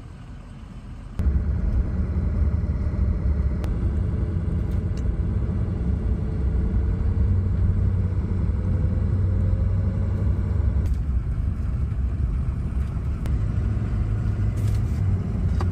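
A vehicle on the move: a loud, steady, low road-and-engine rumble that starts abruptly about a second in.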